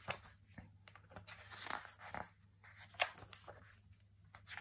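Faint paper rustling and handling as pages of a printed campaign booklet are turned, with a few short scrapes and clicks, the loudest about three seconds in.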